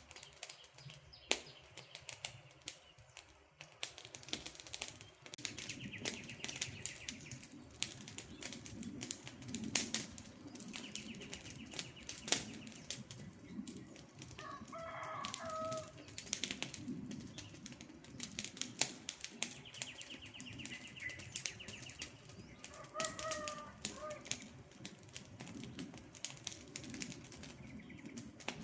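Campfire crackling, with frequent sharp pops and snaps over a steady low rush of burning wood. A bird calls briefly twice, about halfway through and again near the end.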